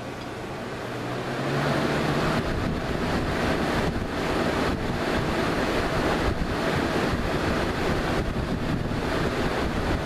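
1998–99 Lasko 3733 20-inch box fan running on high. It spins up over about the first two seconds, its motor hum rising, then settles into a steady, loud rush of air.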